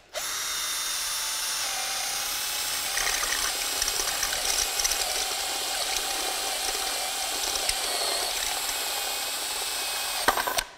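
Cordless drill running steadily with a step drill bit cutting through the metal plate of an e-scooter's rear frame, enlarging a hole to the bit's largest step. The drill stops abruptly near the end.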